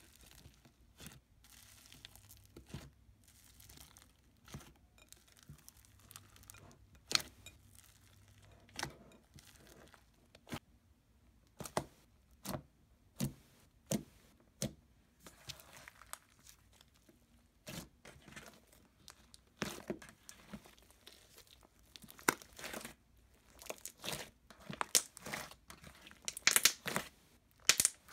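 Hands squishing, poking and stretching white-glue slime packed with foam chunks, giving a run of sticky pops, crackles and tearing sounds. The pops are sparse at first and come thicker and louder near the end.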